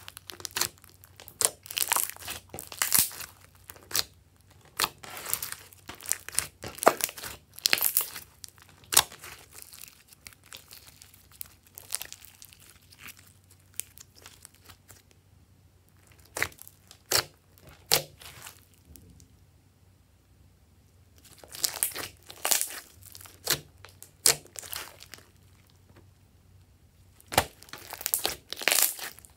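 Hands squeezing, stretching and folding thick glitter slime: a run of sticky clicks and crackles. The crackling thins out and quiets for several seconds in the middle, then picks up again near the end as the slime is mashed hard.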